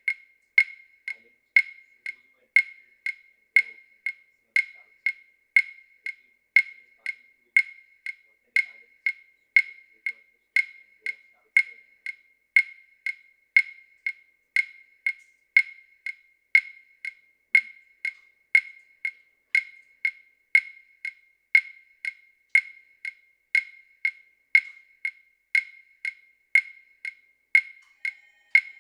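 Steady, evenly spaced wooden-sounding clicks, about two a second, each short and sharp with a clear high pitch, alternating slightly louder and softer like a wood block or metronome keeping time.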